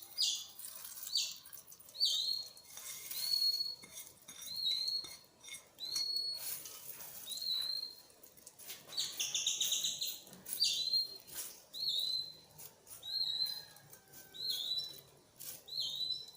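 A bird chirping over and over, one short high note about once a second, with two bursts of quick trilled notes about two seconds and ten seconds in.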